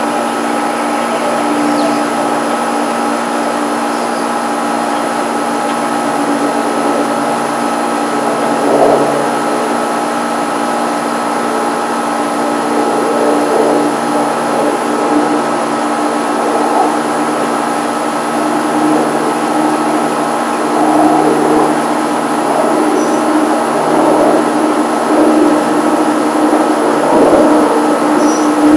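Steady drone of an aircraft overhead: a constant whine over a rumble, getting a little louder toward the end.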